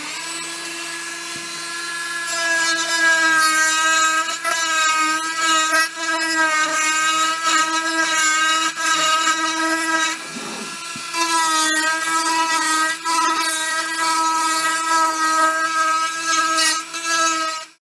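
Dremel rotary tool running with a steady high whine while its carbide carving burr grinds into oak, rounding over the edges of the carving. The grinding grows louder about two seconds in, eases briefly around the middle, and the sound cuts off just before the end.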